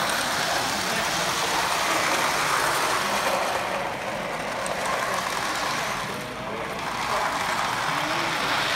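O scale model locomotives racing on three-rail track: a steady rumble of wheels and electric motors.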